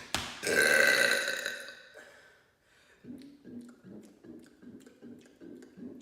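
A man's deliberate, loud, drawn-out burp, pitched and steady, starting about half a second in and fading away over about two seconds. After it come softer, repeated low sounds with small clicks.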